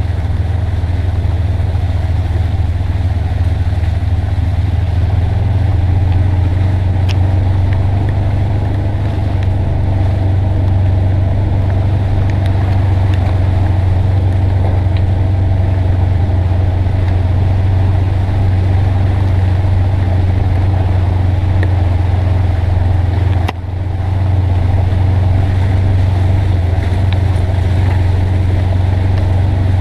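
Polaris Ranger XP 900 side-by-side's twin-cylinder engine running steadily under way, a low drone that rises in pitch about five seconds in and drops off for a moment near the end before picking up again.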